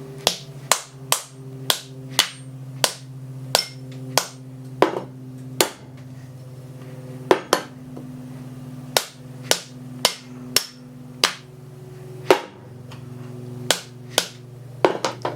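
A hammer strikes the metal of a Sanden scroll AC compressor about twenty times, roughly two blows a second with a short pause partway through, knocking the compressor apart. A steady low hum runs underneath.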